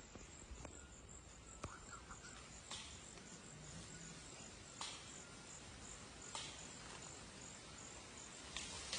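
Rainforest insect, likely a cricket, chirping in a faint, high, evenly pulsed rhythm of about three pulses a second, with a few scattered sharp snaps.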